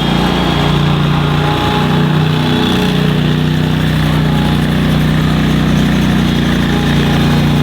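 Engine of a Boss SR MAG stand-on snow machine running steadily under load with its broom attachment. The pitch wavers slightly a couple of seconds in.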